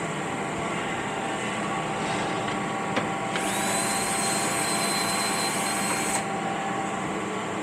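Steady mechanical hum of workshop machinery. A click about three seconds in, then a power tool runs for about three seconds with a high whine and hiss that starts with a quick rise and cuts off suddenly.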